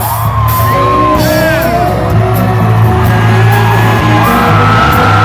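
Loud live band music: a steady low bass under a sliding lead melody, with regular drum hits.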